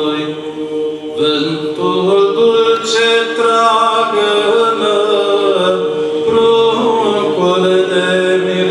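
Male choir of Orthodox priests singing a cappella in several voices, a Romanian Christmas carol (colind), without pause.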